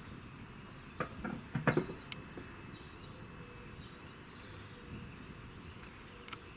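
A few sharp knocks and clatters between one and two seconds in, the loudest sounds here, then several short falling bird chirps over steady outdoor background noise.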